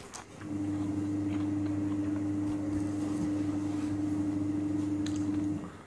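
A steady machine hum with one clear low tone starts about half a second in, holds even, and cuts off sharply about five and a half seconds in.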